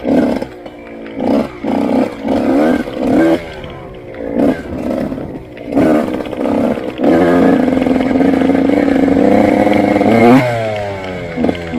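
Motorcycle engine heard on board: a string of short throttle blips for about seven seconds, then a sustained pull at high revs for about three seconds that drops off sharply as the throttle is closed near the end.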